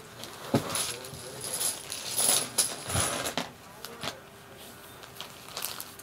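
A clear plastic packet rustling as it is opened, then small plastic Rubik's cube tiles clattering and tapping out onto a plastic tray, with a few sharp clicks.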